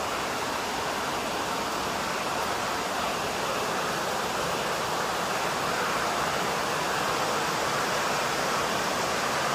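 Steady background hiss with no distinct sounds on it.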